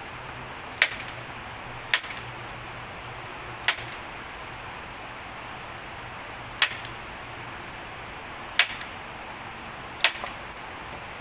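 Six sharp strikes of a hand tool on wood, irregularly one to three seconds apart, most with a lighter rebound knock just after. They sit over a steady background hiss.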